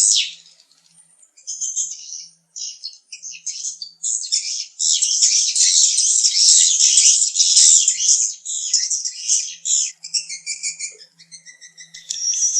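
Swiftlet calls, the kind of recording played to lure swiftlets into a nest house: a dense, rapid, high-pitched twittering that breaks off briefly about a second in and thins out again near the end.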